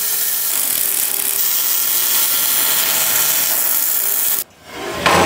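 Wire-feed (MIG) welding gun laying a bead on steel plate: a steady, loud crackling hiss of the arc that cuts off abruptly about four and a half seconds in.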